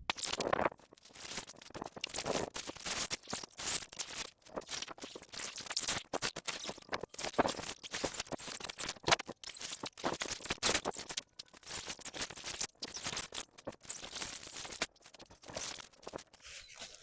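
Irregular rustling, scraping and crackling of shelter materials being handled at close range, with many quick clicks and no steady rhythm.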